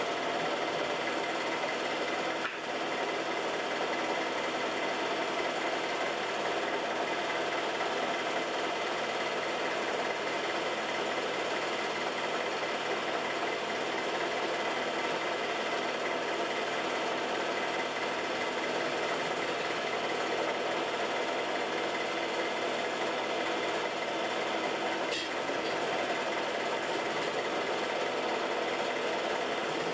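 Home-movie film projector running: a steady mechanical whir and clatter from the film transport, with a brief click about two and a half seconds in and another about twenty-five seconds in.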